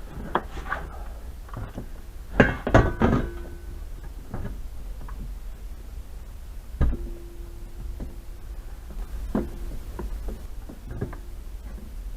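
Sheet steel being worked for new floor panels: a quick cluster of sharp metal knocks, then a single loud clank that rings on for about a second and a half, with lighter taps scattered between. A steady low hum runs underneath.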